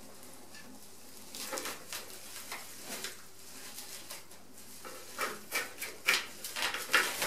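Plastic film wrapping on a spoked bicycle wheel rustling and crackling as it is snipped with scissors and pulled off the rim, in short bursts that come more often in the second half.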